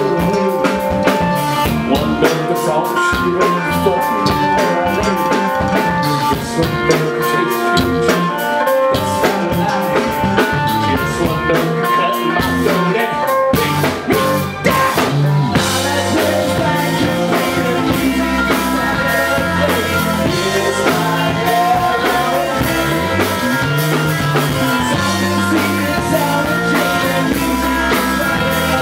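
Rock band playing live through amplifiers: drum kit, electric guitar and bass guitar, with a short break in the drumming about halfway through and heavier bass notes after it.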